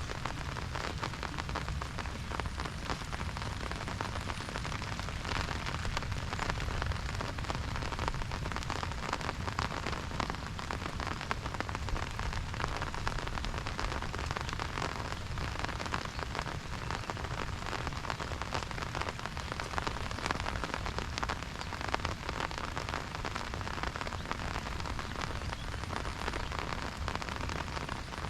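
Steady monsoon rain, a dense patter of drops on an umbrella, with a low rumble underneath.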